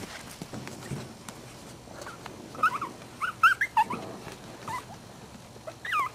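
Young Maltese puppies giving short, high-pitched yips and whimpers as they play-fight. A quick run of squeaks comes about two and a half seconds in, with single ones near five and six seconds.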